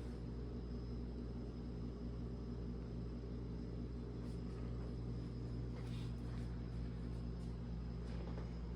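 Steady low room hum with a constant hiss, and a few faint light clicks from the figure being handled.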